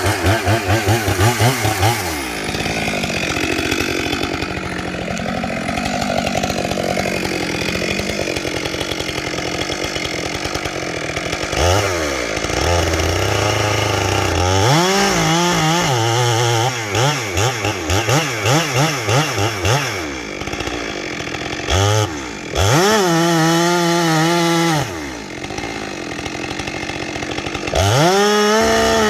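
Stihl 462 two-stroke chainsaw with a 28-inch bar running at full throttle, seemingly under load cutting into a dead pine for several seconds. In the second half it is blipped up and down between idle and high revs, then held at high revs.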